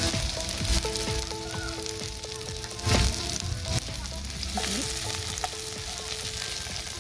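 Sliced shallots, garlic, onion and spring onion sizzling in hot oil in a wok, with a spatula stirring and knocking against the pan, the loudest knock about three seconds in.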